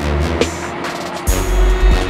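Background music with a heavy bass line and drum hits; the bass gets louder about a second and a quarter in.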